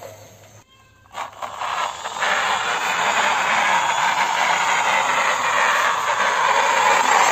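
Plastic toy excavator's gears and tracks whirring and scraping steadily as it is worked by hand on a concrete floor, starting about two seconds in.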